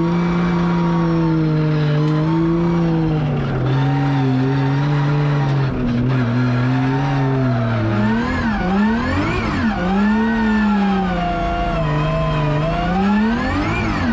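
Drift car engine running at a fairly steady pitch for several seconds, then revving up and down sharply again and again from about eight seconds in, with tyre squeal.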